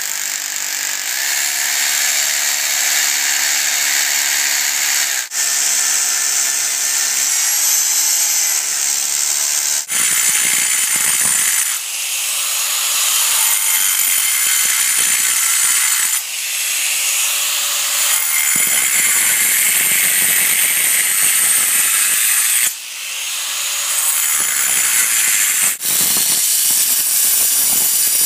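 Electric masonry drill with a half-inch bit boring into a gunite pool wall, then, about ten seconds in, a 4-1/2-inch angle grinder with a diamond blade cutting slots into the concrete in several short stretches, each broken off abruptly by a cut.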